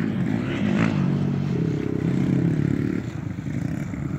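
Dirt bike engine revving as it rides the track: the pitch climbs about one and a half seconds in and drops back near the three-second mark.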